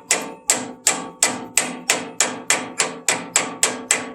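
Steady hammer blows on metal, about three a second, each leaving a brief ring: driving the tight new trunnion bushing into place on a Farmall Cub.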